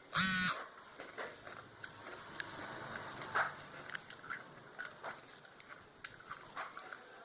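A person crunching and chewing a snack, with many small irregular crackles and clicks. At the very start there is a short, loud pitched chirp lasting about half a second.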